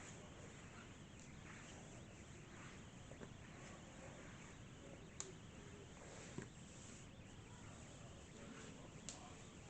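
Faint steady hiss from a camera's own recording, broken by a few sharp clicks: three of them, irregularly spaced, in the second half. These are the strange noises the camera is making while it acts slow.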